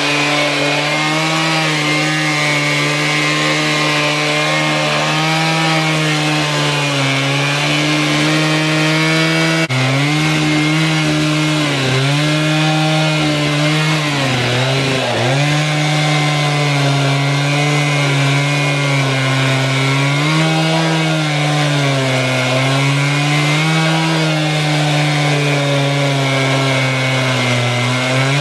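Two-stroke chainsaw on a chainsaw mill running at full throttle while ripping a log lengthwise. Its engine note wavers slowly up and down as the load changes, with a brief dip about halfway through.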